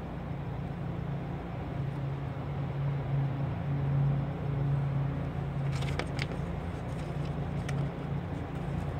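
Steady low hum of background vehicle noise. From about six seconds in come scattered crackling clicks as a vinyl wheel-skin decal is handled and peeled from its backing sheet.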